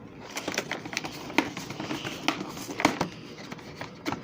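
Cardboard and plastic packaging of a trading-card collector box being handled and opened: scattered sharp clicks and taps with light rustling and crinkling.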